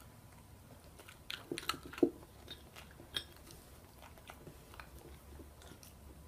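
Dachshund chewing and crunching a bite of food in a quiet room: a scatter of short crunches and clicks, loudest about one and a half to two seconds in, with one more a second later.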